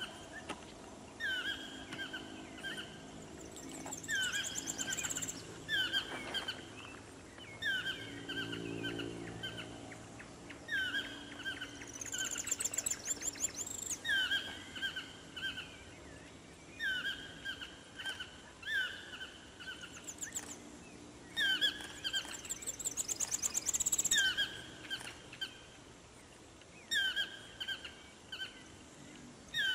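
Yellow-throated toucan (chestnut-mandibled form) calling over and over: a yelping two-part call, a short hooked note then a held note, about every one to two seconds, with a pause of a few seconds near the end. Another bird's fast, high trill sounds three times behind it.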